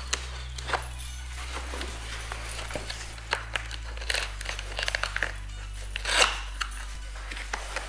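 Small knife slicing packing tape and scraping along cardboard boxes: a run of sharp scrapes, rips and clicks, the loudest about six seconds in, over background music with low held bass notes.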